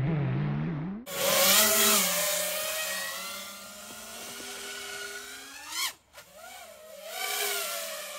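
Small FPV quadcopter's electric motors and propellers whining, the pitch wavering up and down with throttle. The sound breaks off abruptly about a second in and again near six seconds, after a quick rising swoop in pitch.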